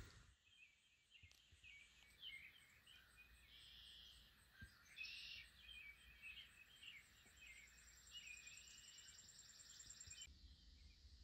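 Faint birds chirping and calling over quiet outdoor background noise, with a thin high trill joining in near the end.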